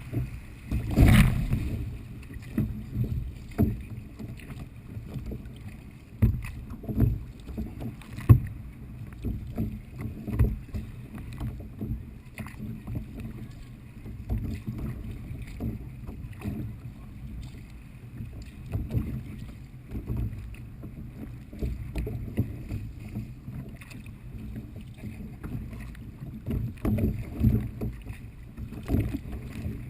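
Kayak paddling in light chop: irregular splashes and sloshing of water against the kayak, low and dull, with a louder splash about a second in.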